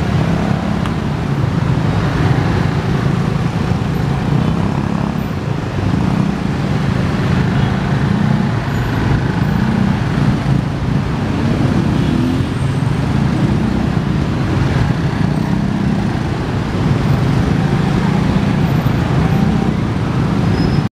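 Dense road traffic of many motorcycles and cars at close range: a steady mass of small engines running together, their pitches rising and falling as riders move off.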